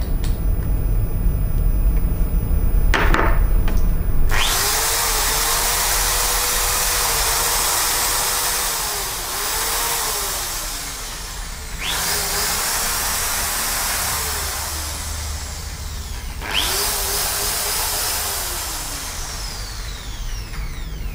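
Huspanda HRD 1301 750 W corded electric drill running free with a bit in the chuck, after a few seconds of handling. It is started three times in a row, each run spinning up with a rising whine and running several seconds with its pitch wavering, and it winds down near the end.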